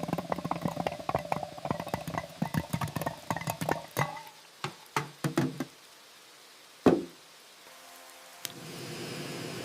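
Rapid, irregular knocking and tapping that thins out over about five seconds, followed by a single loud knock about seven seconds in; a steady hiss starts near the end.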